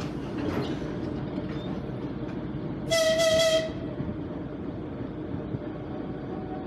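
A diesel locomotive's horn sounds one short toot of just under a second, about three seconds in, over a low steady rumble.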